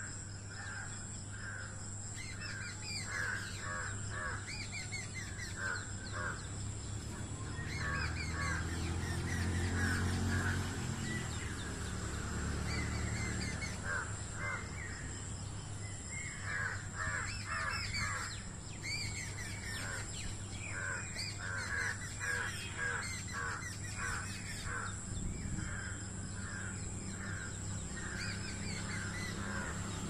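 Birds calling: runs of short, repeated calls throughout, over a steady low hum. A low rumble swells and fades about ten seconds in.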